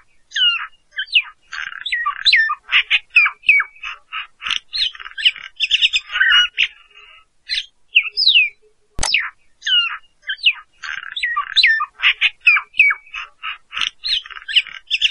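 Bird calls: a busy run of chirps, whistles and squawks, with a sharp falling whistle at the start and again about nine seconds in, after which the same sequence of calls repeats.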